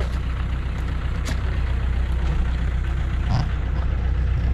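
Heavy vehicle engine idling steadily with a low, even hum.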